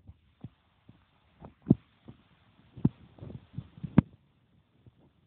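A series of short, dull thumps and knocks at irregular spacing, three of them louder than the rest.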